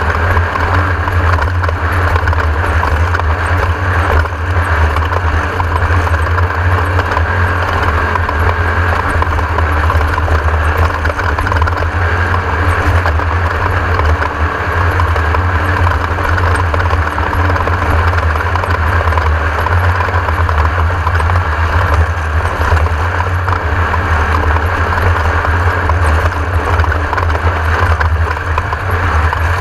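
Class 1600 off-road race buggy driving, a steady loud mix of engine and running noise that never lets up.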